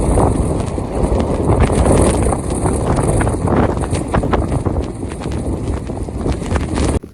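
Strong blizzard wind buffeting the microphone, with a dense spatter of sharp crackles and ticks; it cuts off suddenly near the end.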